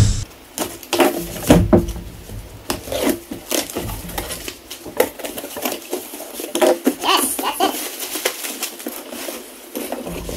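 A pocket knife slitting the packing tape on a cardboard box, then the box flaps being pulled open and the packing inside handled: cardboard scraping, plastic air-cushion packing rustling, and many short knocks and clicks.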